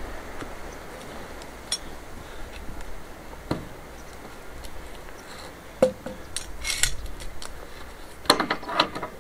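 Scattered metallic clinks, taps and scrapes from hand tools working on a solar panel's ground mount, with a short run of clattering knocks near the end.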